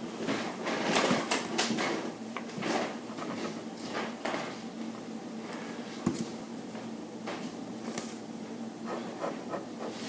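Pen scratching on drawing paper in a run of short, irregular strokes, with the hand rustling over the sheet; the strokes thin out about halfway through.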